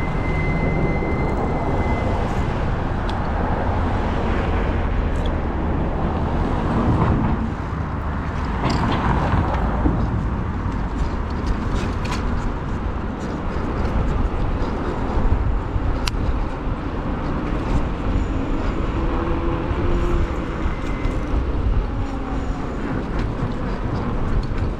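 Steady road traffic and rushing noise heard from a moving e-bike, with cars going by.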